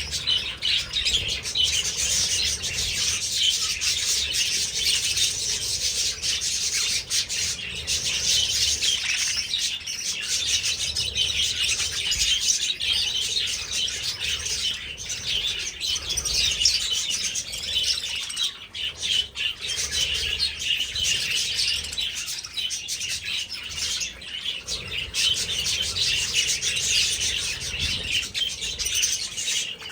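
A flock of budgerigars chattering and chirping without a break, many high calls overlapping into one dense, steady chorus.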